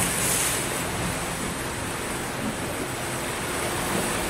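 Small sea waves breaking and washing up a sandy beach: a steady wash of surf, swelling slightly right at the start.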